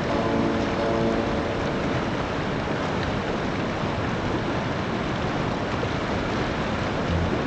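Stream water rushing and splashing in a steady, full hiss.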